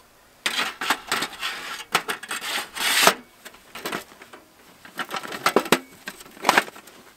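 Metal panels of a folding tent stove scraping, rubbing and clicking as they are handled and fitted together. There is a busy run of scrapes and knocks for the first three seconds, loudest near its end, then a few sharper clicks and short scrapes near the end.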